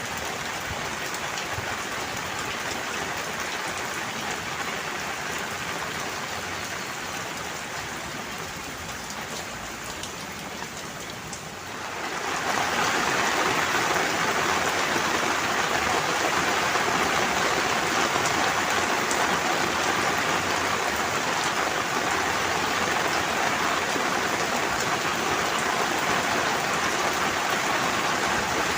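Steady rain falling, an even patter with no distinct drops standing out. It turns clearly louder, with a sudden step up, about twelve seconds in.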